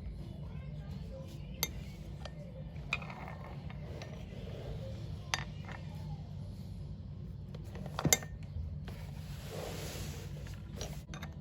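A few sharp metal clinks and knocks from metal parts or tools being handled, the loudest about eight seconds in, over a steady low hum, with a brief hiss near the end.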